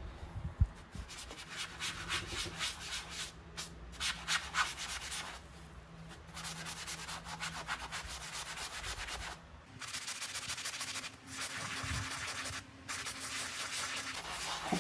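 Small damp pad scrubbed rapidly back and forth over textured silk wallpaper, a dry scratchy rubbing in several bouts broken by short pauses, with one sharp knock about half a second in.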